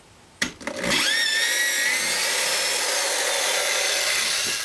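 Electric drill with a 1.5-inch hole saw boring into a mini pumpkin: a click as the trigger is pulled, the motor whine rising to speed about a second in, then running steadily and stopping right at the end.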